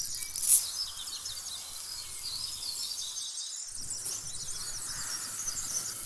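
Dry cement powder and sand poured into an aluminium soda can serving as a toy mixer drum: a steady grainy hiss full of small ticks as the grains strike the metal, with a sharper tap about half a second in.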